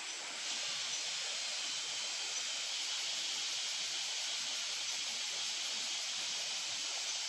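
Steady high-pitched hiss of outdoor background noise, stepping up slightly about half a second in and then holding level.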